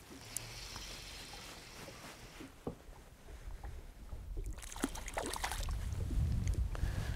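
Small waves lapping and sloshing against the side of a fishing boat, with splashing near the end as a hooked crappie is reeled up to the surface beside the hull.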